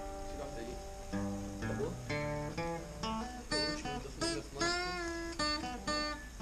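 Acoustic guitar being played, a run of plucked single notes and chords that ring on and change pitch.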